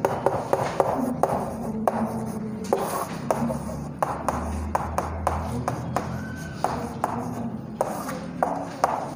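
Chalk writing on a chalkboard: many irregular sharp taps as the chalk strikes the board, with a rough scratching between them as the strokes are drawn.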